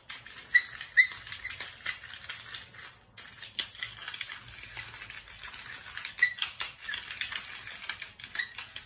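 Pepper mill being twisted over food, grinding pepper: a rapid stream of small dry clicks and crunches, with short squeaks about half a second and a second in and again a little after six seconds.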